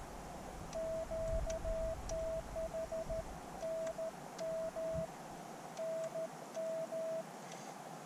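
Morse code (CW) from a ham radio transceiver: a single steady beep keyed on and off in dots and dashes over background hiss, with short pauses, stopping about a second before the end.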